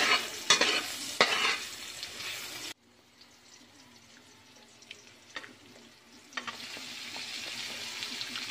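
Garlic and shallot sizzling in hot oil in a wok, stirred with a metal spoon that scrapes and knocks against the pan. The sizzle cuts off abruptly a little under three seconds in, leaving only a few faint clicks, and a steady frying hiss returns past the middle.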